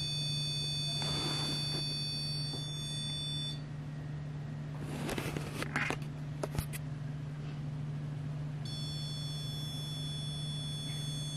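Steady high-pitched electronic alert tone from a ghost-hunting sensor device, which the investigators take for a sign of someone on the bed. It cuts off about three and a half seconds in and sounds again near the end, over a steady low hum, with a few brief rustles in the gap.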